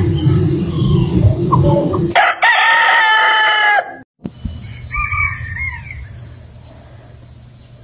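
A rooster crowing once, a loud held call about two seconds in over a low rumble. It cuts off abruptly, and a faint short call follows about a second later over a low steady hum.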